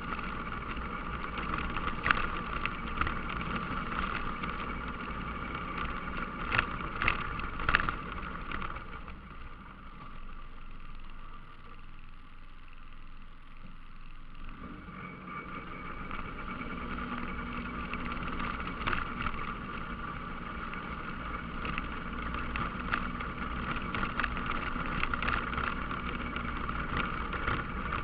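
ATV engine running while the machine rides over a rough gravel trail, with a few sharp knocks from bumps. It goes quieter for a few seconds around the middle, then picks back up.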